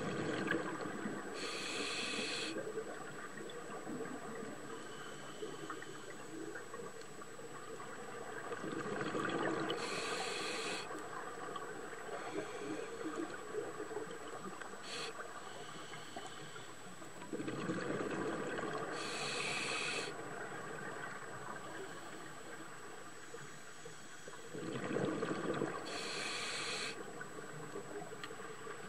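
Scuba diver breathing through a regulator underwater: four slow breaths about eight seconds apart, each a bubbling rush of exhaled bubbles and a short hiss of the regulator, over a steady wash of water noise.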